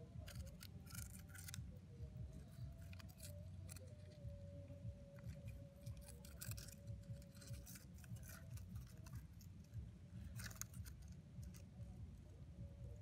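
A thin hook-rod scraping and clicking against coral rock as it is worked down into an octopus hole, in scattered bursts of scratchy clicks, with a faint steady hum underneath.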